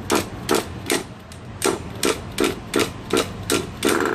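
Nitro RC car engine being pull-started, its recoil starter rasping in short quick pulls about two or three a second, the engine not catching.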